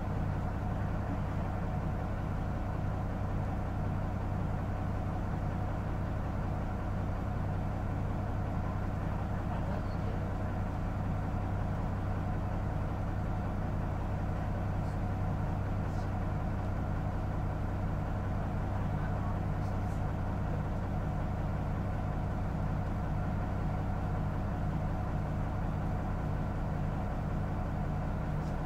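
Diesel engine of a Mitsubishi Fuso Aero Midi MK27 city bus, heard from inside the cabin, running at a steady, unchanging note, with a few faint clicks from the cabin.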